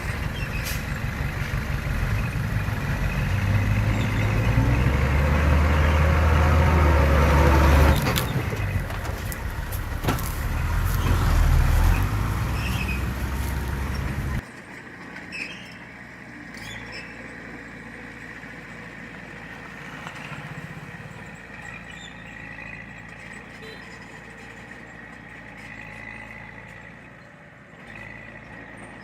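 Heavy diesel construction machine running hard, its engine note swelling twice under load. About halfway through it drops abruptly to a quieter, steady engine hum.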